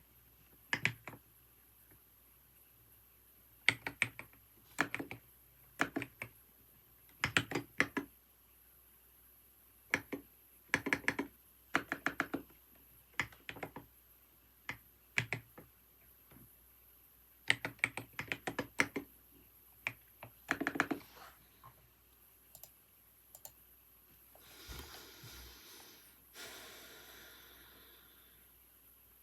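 Computer keyboard typing in short bursts of keystrokes separated by pauses, thinning to a few single key clicks. Near the end, a soft rustling sound lasts about three seconds.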